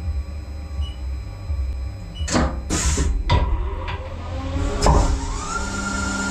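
Haas CL-1 CNC lathe: several sharp clunks and a clatter, then the spindle winds up with a rising whine that settles into a steady tone about a second before the end.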